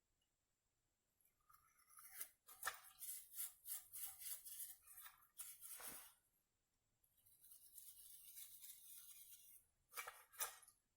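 Small carburetor parts being scrubbed and handled during cleaning: a run of short scratchy strokes, then a steady hiss for about three seconds, then two sharp clicks near the end.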